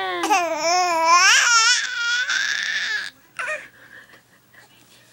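Baby vocalizing: long high-pitched, cry-like wails whose pitch slides up and down, stopping about three seconds in, then one short call.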